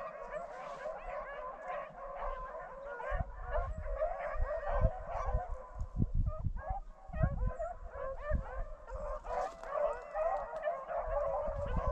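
A pack of rabbit hounds baying and yelping together on a running rabbit's scent, many voices overlapping, with irregular low thumps and rumbles on the microphone.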